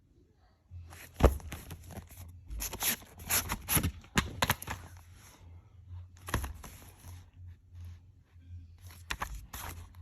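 Plastic DVD case being handled and opened: crackling and scraping of the plastic in short bursts, with a few sharp clicks, the loudest about a second in.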